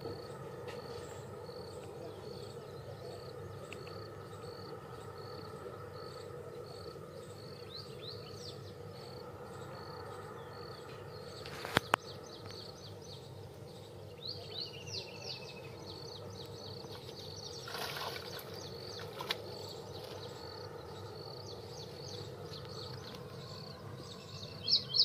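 Pondside outdoor ambience: a high chirp repeating evenly a few times a second over a steady background hiss, with a few short gliding chirps of birds. A single sharp click sounds about twelve seconds in.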